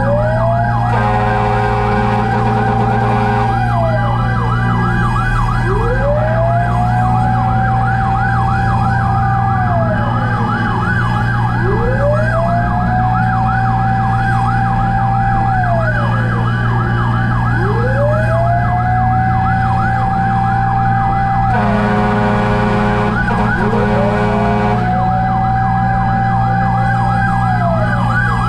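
Fire truck sirens: a slow wail that rises, holds and falls about every five to six seconds, together with a fast, continuous yelp, over a steady low engine drone. Two long blasts of an air horn sound about a second in and again around 22 seconds in.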